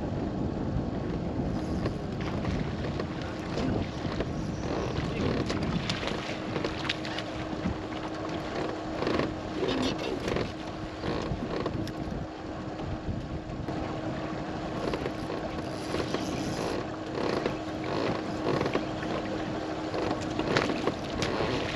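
Wind buffeting the microphone and choppy water lapping at a bass boat's hull, under a faint steady hum. Scattered sharp knocks and clatters on the boat come and go, several bunched about halfway through.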